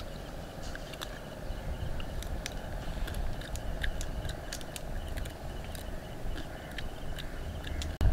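Cooked mud crab being eaten by hand: scattered small, sharp cracks and clicks of shell being broken and chewed, over a steady low rumble.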